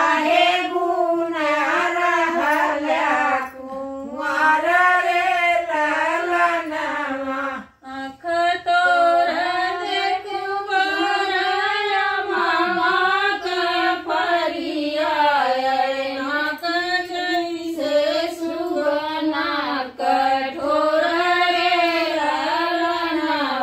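Women's voices singing a traditional Indian wedding folk song (shaadi ke geet) together, in sung phrases separated by short pauses.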